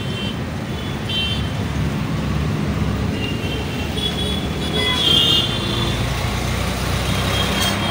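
Steady road-traffic rumble from a busy street, with a brief vehicle horn toot about five seconds in.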